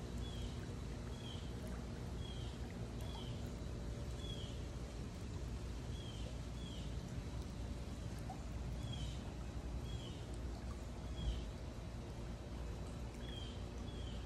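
A small bird chirping, short high chirps in ones and twos every second or so, over a steady low outdoor rumble and hum.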